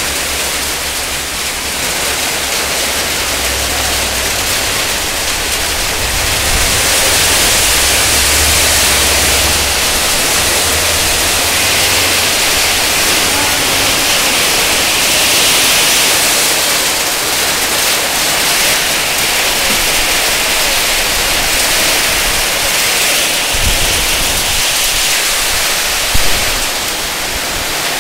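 Heavy rain pouring down onto a waterlogged road, a loud steady hiss. A low rumble comes and goes between about three and ten seconds in.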